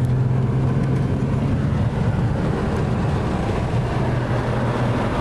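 A car being driven, heard from inside the cabin: a steady low engine hum with road and tyre noise.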